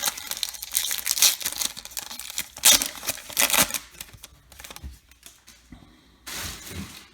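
Foil wrapper of a baseball card pack torn open and crinkled, loudest in the first four seconds, then softer rustling as the cards are handled, with one more short crinkle near the end.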